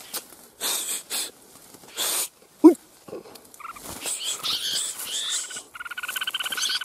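Dry brush rustling in short bursts, then red-whiskered bulbul calls from about four seconds in, turning near the end into a fast, buzzy chatter.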